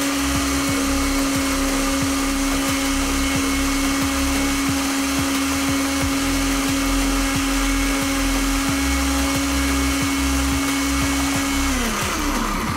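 Countertop blender running at a steady speed while blending a liquid oil-and-fruit dressing. About a second before the end it is switched off and its whine falls in pitch as the motor spins down.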